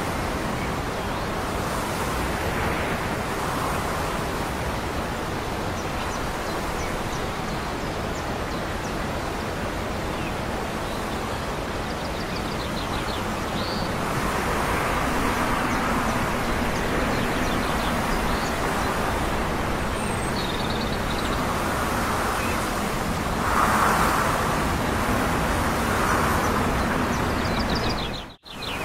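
Steady outdoor background rumble of distant traffic and wind, with a few short bird chirps; a faint low hum comes in about halfway, and the sound drops out for an instant near the end.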